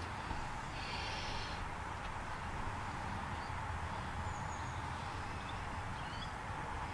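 Quiet outdoor ambience: a steady low rumble like wind on the microphone, with a few faint high chirps in the second half.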